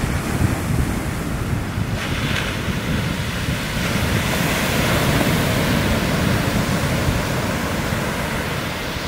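Shorebreak wave crashing and its whitewater rushing up toward the sand, swelling about two seconds in, loudest in the middle and easing near the end, with wind buffeting the microphone.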